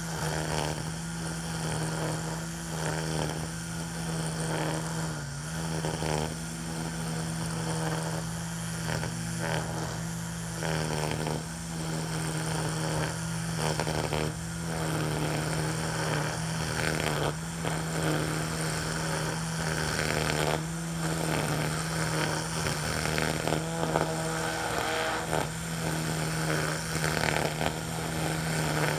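Ryobi 40V battery string trimmer running steadily with a constant whine, its line swishing irregularly as it is swung through tall centipede grass.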